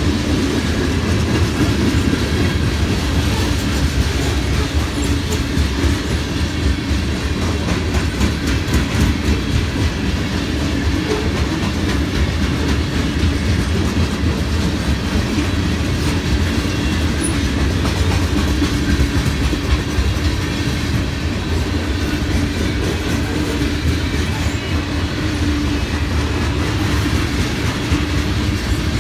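Freight cars of a Norfolk Southern mixed freight train rolling steadily past at a grade crossing, with a continuous rumble and wheels clacking over the rail joints.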